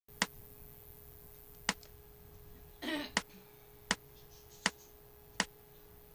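Six sharp clicks, the first two far apart and the last four evenly spaced about three quarters of a second apart, over a faint steady hum, with a brief rustle about three seconds in.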